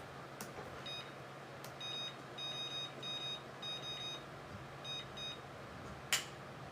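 Electronic beeps from an oven's control panel being set: a short beep about a second in, then a run of about seven beeps, then a sharp click about six seconds in.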